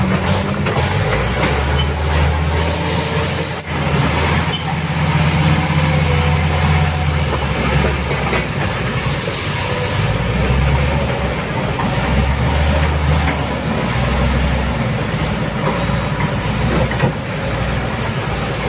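Diesel engines of a Kobelco crawler excavator and a Komatsu bulldozer working, a loud continuous rumble that swells and eases with load every few seconds, with clanking of steel crawler tracks.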